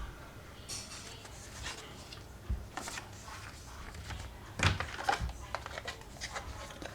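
Unboxing handling of a boxed battery charger kit: packaging and parts being moved, with scattered light clicks, rustles and knocks, the loudest knock about two-thirds through.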